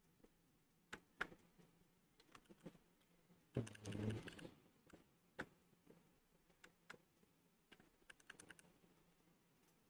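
Faint, irregular clicks and taps from a computer desk during digital painting, with one brief louder rustle about three and a half seconds in.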